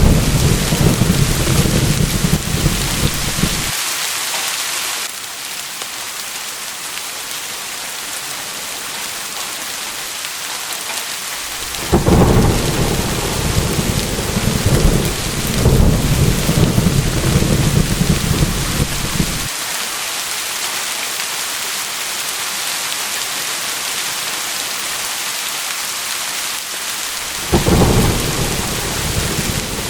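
Steady heavy rain hissing, with deep rolling thunder rumbles three times: at the start, from about twelve to nineteen seconds in, and again near the end. The first two rumbles cut off abruptly.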